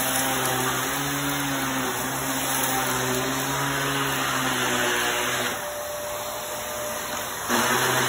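Upright vacuum cleaner running steadily as it is pushed over a rug and sucks up a pile of fine dirt. Its motor hum drops away for about two seconds near the end, then comes back louder.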